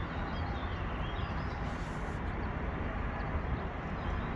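Steady outdoor background noise with a low rumble, with a few faint high chirps, as of small birds.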